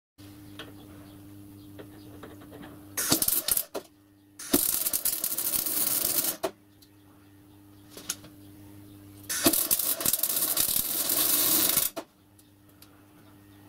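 MIG welding arc crackling on steel tube in three runs: a short one about three seconds in, then two longer runs of about two seconds each. A steady low hum runs underneath.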